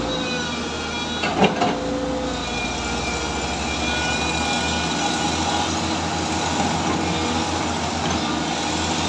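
Heavy diesel engines of a SANY SY205C excavator and a stuck 30-ton crane truck running steadily during a towing recovery, with a couple of sharp metallic knocks about one and a half seconds in.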